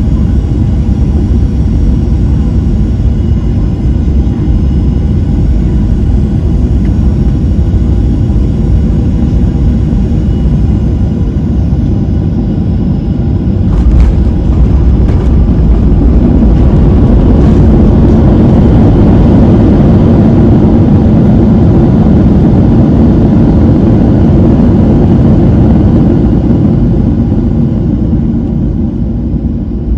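Cabin noise of a Boeing 737-700 landing: steady engine and airflow rush with faint engine tones. About halfway through there is a sudden jolt as the wheels touch down, followed by a louder rush of reverse thrust and braking that eases off near the end.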